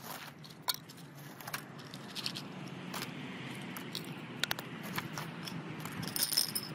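Small scrap objects being picked up and handled into a plastic bag: scattered light clicks and knocks with plastic rustling, a quicker cluster near the end, over a steady low background noise.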